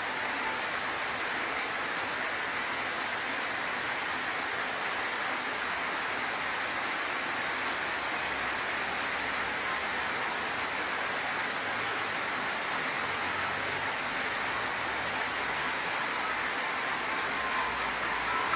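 Steady, even rushing hiss with no breaks, bright and high, like water or rain noise.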